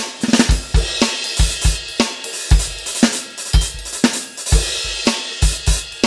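Roland TD-25K electronic drum kit played through its sound module on the Fusion kit preset. It is a busy, steady groove of bass drum, snare and cymbals.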